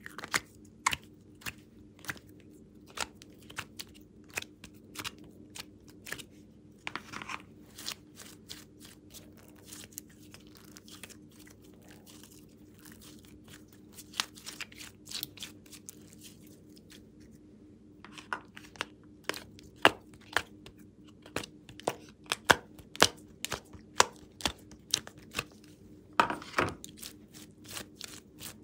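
Hands squeezing and kneading slime, giving off irregular sticky crackles and pops that come thicker and louder in the second half.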